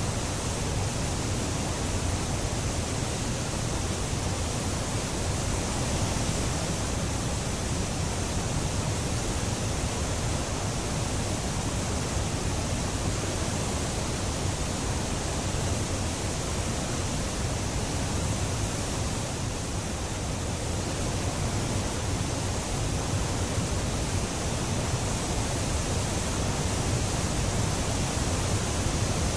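Steady rushing of whitewater at a river falls: an even, unbroken hiss with no changes in level.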